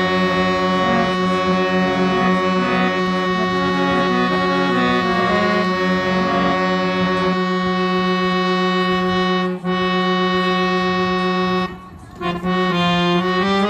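Harmonium played: a held low drone note with short melody notes over it for the first half, then sustained notes. The sound cuts out briefly about twelve seconds in, and a few note changes follow.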